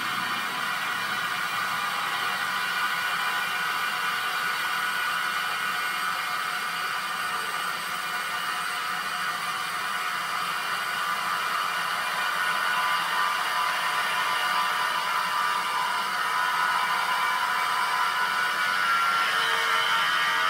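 Wood-cutting machinery running: a steady whir with several high, steady tones, growing a little louder about halfway through.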